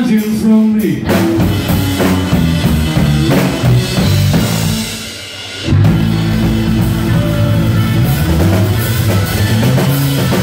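Live band playing: electric guitar, bass guitar and drum kit, with a sung line ending just after the start. About four and a half seconds in, the band drops low for about a second, then comes back in at full strength.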